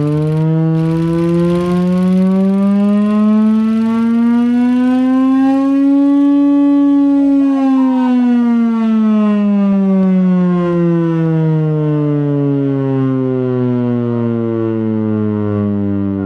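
Chrysler air raid siren, a V8-engine-driven giant siren, wailing on the attack signal: its deep tone rises slowly for about six seconds, then falls slowly again. The tone is very loud and full of overtones.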